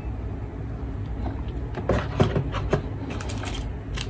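Hands handling the airsoft pistol's box and its accessories: a few short, light clicks and rustles, mostly in the second half, over a low steady hum.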